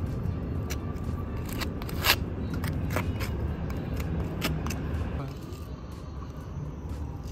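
Spatula scraping and clicking on a concrete roof as it spreads and smooths thick asphalt leak sealant along a crack, over a steady low rumble. The scrapes are thickest in the first five seconds, with one louder click about two seconds in, then thin out.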